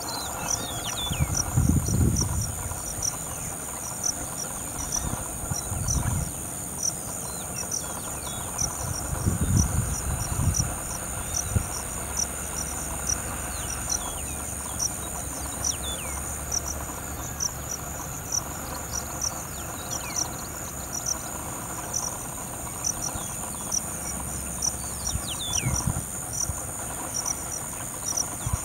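Insect chorus, crickets or similar, with a steady high trill and regular pulsed chirps throughout. A few short downward-sliding bird whistles and several brief low rumbles come and go over it.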